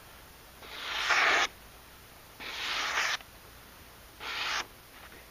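Elmax-steel knife slicing through a sheet of paper three times, each stroke a hissing rasp that grows louder and cuts off sharply, the last one shorter. It is a paper-slicing test of an edge left with small chips from being run into bamboo knots.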